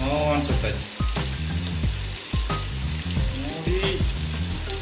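Fish pieces sizzling in shallow oil on a flat griddle pan (tawa), a steady crackling hiss. Background music with stepped bass notes plays over it.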